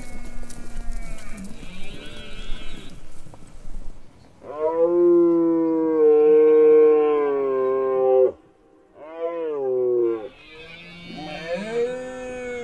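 Red deer stags roaring in the rut. Overlapping calls at first, then one long, loud bellow lasting nearly four seconds, a shorter call falling in pitch after a brief break, and more calls near the end.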